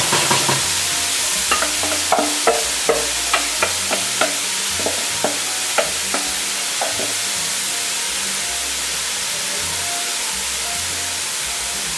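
Diced onions sizzling in hot oil in a pot, stirred with a utensil that scrapes and knocks against the pot at about two strokes a second. The stirring stops about seven seconds in, leaving a steady sizzle.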